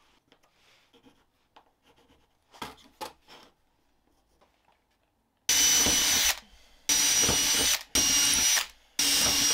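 Makita 18V cordless drill pre-drilling holes in a timber board: four short runs of the motor's steady whine with the bit cutting wood, starting about halfway in, each lasting under a second. Before that there are only a few faint taps and pencil scratches from marking out.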